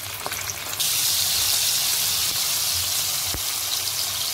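Chicken leg pieces deep-frying in hot oil, a steady sizzle that jumps suddenly louder and hissier about a second in.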